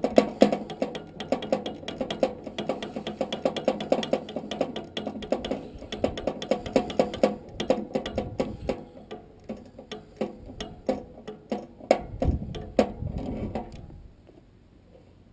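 Ratchet wrench clicking fast as it is swung back and forth, loosening the fastener that holds a furnace blower wheel on its motor shaft. A couple of heavier knocks come near the end, and the clicking stops shortly before the end.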